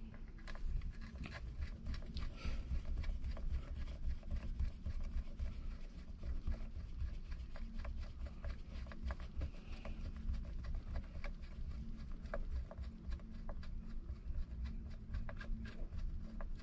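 Hand screwdriver driving screws into a car's plastic centre console, a run of small irregular clicks and scrapes over a low rumble.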